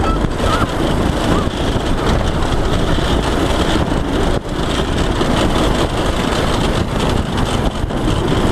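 Go-kart engine running steadily as the kart drives along a dirt track, with rushing noise throughout and a brief drop in level about four and a half seconds in.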